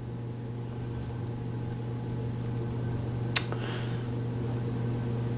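Steady low hum of a fan or appliance in a small room, with one sharp click about three and a half seconds in.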